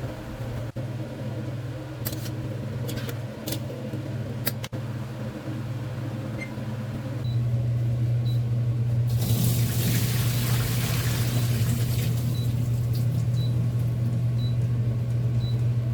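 A kitchen appliance running with a steady low hum that gets louder about halfway through, with a stretch of hissing a couple of seconds later and faint regular ticks.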